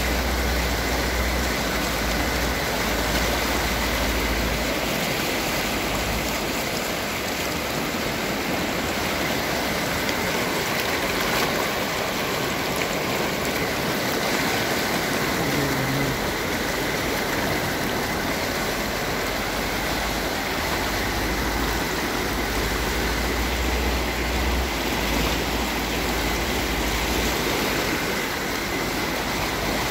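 Swollen, silty mountain river rushing through turbulent rapids: a steady, loud rush of water, with a low rumble in the first few seconds and again near the end.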